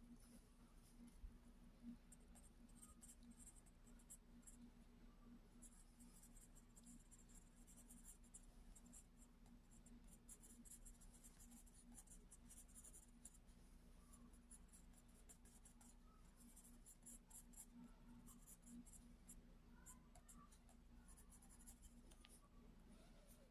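Faint scratching of a graphite pencil on drawing paper as it shades, in runs of short strokes with brief pauses. A steady low hum sits underneath.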